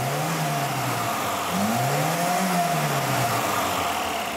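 Lada inline-four engine blipped twice on the throttle, the revs rising and falling each time with the second rise higher, then settling back to idle; it is running on fresh oil that is mixing with the lithium grease it had been run on.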